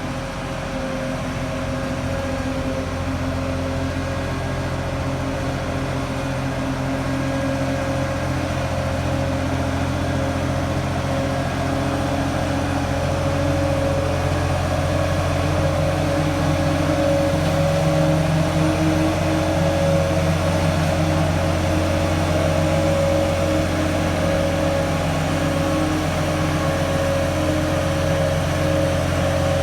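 Heavy vehicle engine running with a steady, even hum. It grows gradually louder over the first half, then holds.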